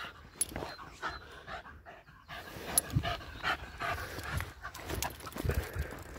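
Patterdale terrier panting as it trots, with scattered light taps of footsteps on the paved path.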